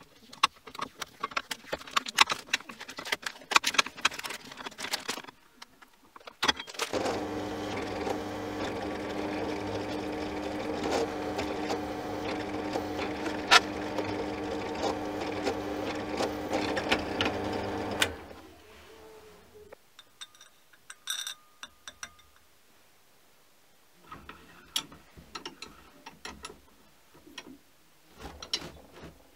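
Quick hand strokes rasp along the edge of a 4 mm aluminium plate for about five seconds, deburring it. Then a drill press runs with a steady hum for about eleven seconds while a countersink bit cuts into the aluminium, and it winds down. Scattered light clicks and metal clinks follow as a steel bar is set in a bench vice.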